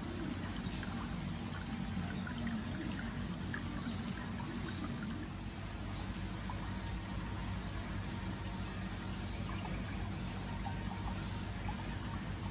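Steady trickle of water running into a shallow open aquarium tank, over a low steady hum.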